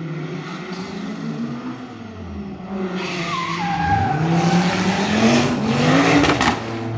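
Rally car engine revving hard, its pitch climbing for a few seconds and then dropping away sharply near the end, with tyres squealing and a couple of sharp cracks as it comes off the throttle.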